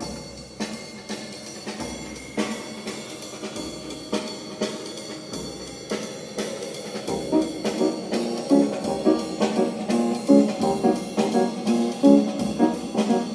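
Recorded music with a regular drum beat played from an HDCD on a Clarion HX-D1 car head unit through the car's speakers. It starts at once and gets louder and fuller about halfway through.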